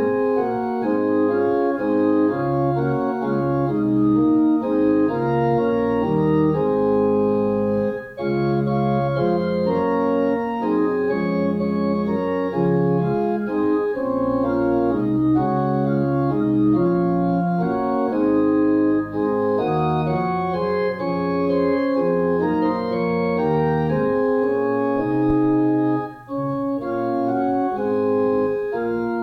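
Organ playing a hymn in sustained chords, with short breaks between phrases about eight seconds in and again near the end.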